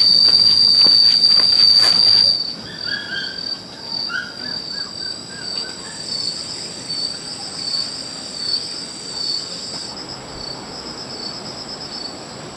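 Insects trilling: a loud, steady, high buzz that drops off sharply about two seconds in, leaving a quieter, pulsing high trill. A few short chirps follow soon after.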